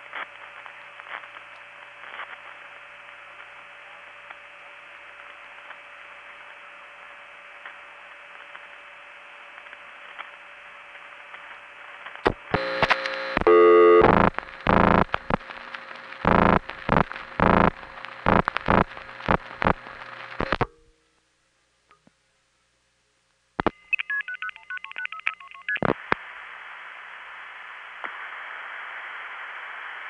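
Telephone line of a 1976 long-distance call: steady line hiss with a faint steady tone, then about eight seconds of loud, rapid signaling tone bursts, like digits being sent down the line. It cuts to dead silence for a couple of seconds, then a click and short faint tone pips before the hiss comes back.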